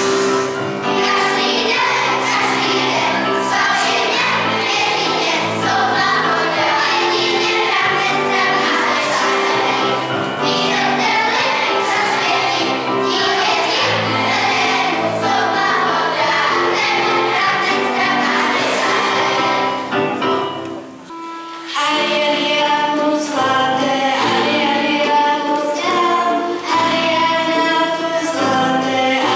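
Children's choir singing. About two-thirds of the way through the music breaks off briefly, then the choir starts again with clear held notes.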